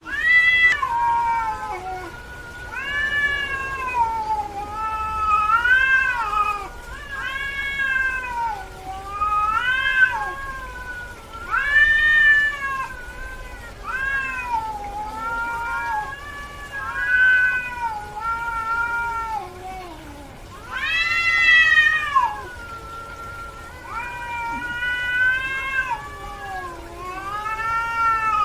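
Domestic cat meowing over and over: a long run of drawn-out meows that rise and then fall in pitch, one every second or two, with a louder, higher meow about two-thirds of the way through.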